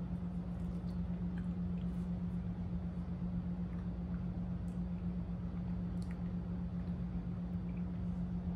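A steady low hum, with faint, soft mouth sounds of biting into and chewing a mochi ice cream ball.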